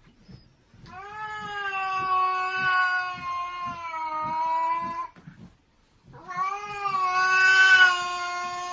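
Cat yowling: two long, drawn-out calls, each held steady for about three to four seconds with a slight drop in pitch, separated by a short pause about five seconds in.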